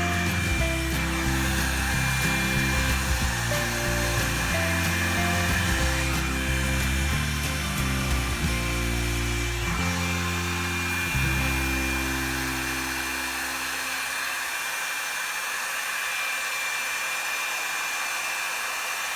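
Revlon One-Step hair dryer brush running steadily, a continuous airflow with a steady high whine. Background music plays under it and fades out about two-thirds of the way through.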